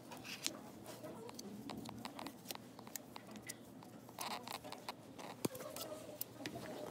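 Spatula scraping and slapping wet alginate impression paste from a rubber mixing bowl into a mandibular impression tray. It makes quiet, irregular wet clicks and scrapes, with a sharper knock about five and a half seconds in.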